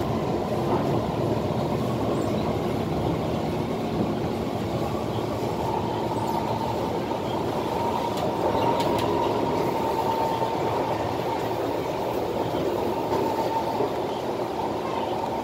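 Cabin noise of a Kawasaki-built SMRT C151 metro train running along the line: a steady rumble of wheels and running gear. A steady high tone joins in about six seconds in and holds.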